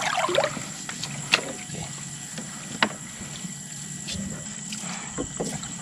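River water splashing and sloshing as people wade and work a fishing net, with two sharp knocks about a second and a half apart.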